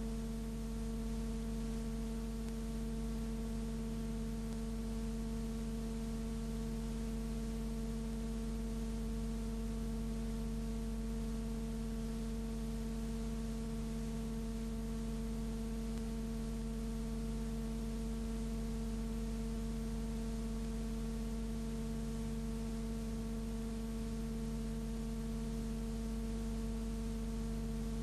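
Steady electrical hum made of several fixed tones over a faint hiss, with no street or tram sounds.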